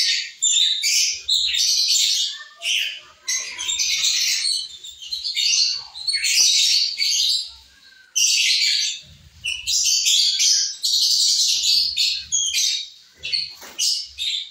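A flock of lovebirds chattering: shrill, overlapping chirps in dense bursts with brief lulls, the longest about eight seconds in.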